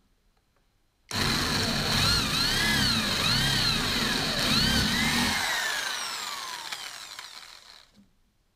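Corded electric drill boring a bolt hole in a pine board. It starts about a second in, its whine dipping and rising again several times as the bit bites into the wood, then winds down with a falling whine over the last few seconds.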